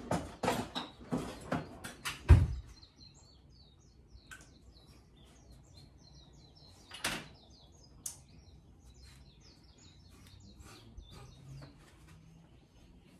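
A few knocks and clatters of kitchen things being handled, ending in a heavy thump about two seconds in. After that, faint birds chirping, with a couple of single clicks.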